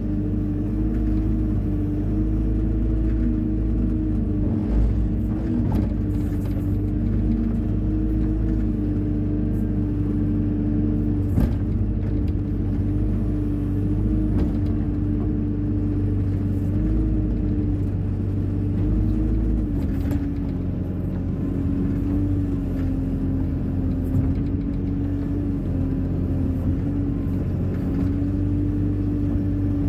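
Hyundai 140 wheeled excavator's diesel engine running steadily, its pitch wavering slightly and dropping a little about twenty seconds in, with a few brief knocks.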